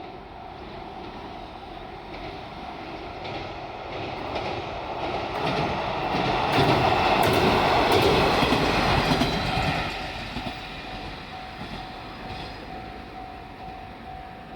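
A diesel railcar train passing over a level crossing, growing louder to a peak about halfway through and then fading, its wheels clicking over the rail joints as it goes by. The crossing's warning signal sounds as a steady tone underneath.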